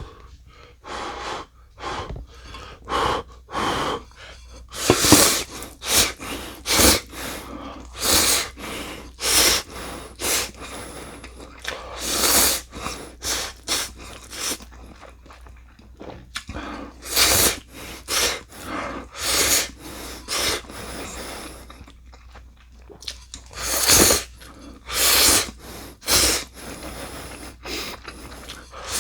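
Close-up eating sounds of instant ramen: short, sharp slurps of noodles and breaths about once a second, with two brief lulls, one just past the middle and one before the end.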